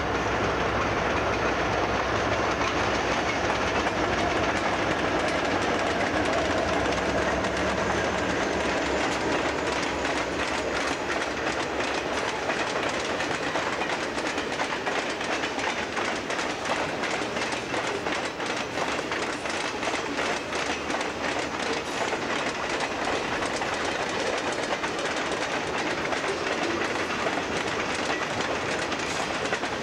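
Freight train passing: the diesel locomotives' engines drone steadily for the first ten seconds or so, then the freight cars roll by with a continuous clickety-clack of wheels over the rail joints.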